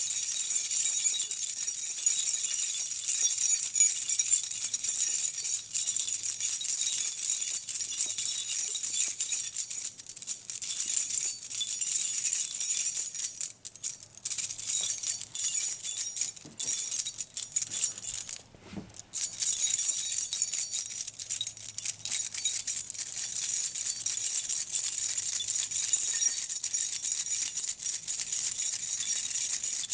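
A bunch of metal keys shaken and jangled continuously, with a few short pauses a little past the middle.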